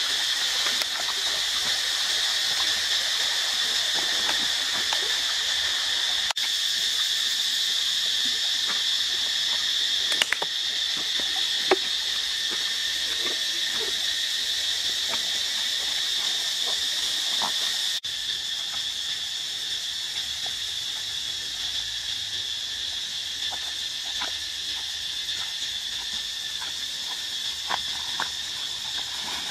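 Steady, high-pitched insect chorus, with a few faint light crackles of footsteps on dry ground and twigs.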